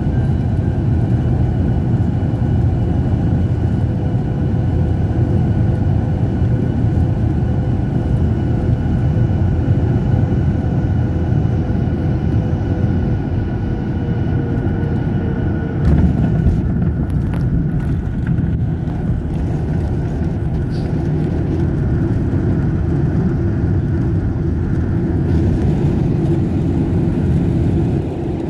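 Cabin noise of a Boeing 737-900ER on final approach: steady engine and airflow rush with faint steady whine tones. About halfway through comes a thump as the main wheels touch down. After it the whine stops and the heavier rumble of the landing roll on the runway takes over, with the hiss growing brighter near the end.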